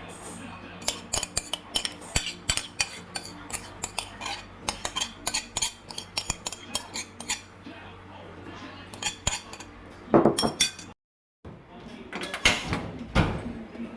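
Kitchen utensils clinking and clattering against pots and dishes: a quick run of sharp taps and clinks over a low steady hum, louder clattering a little later, then a brief total dropout and more clatter near the end.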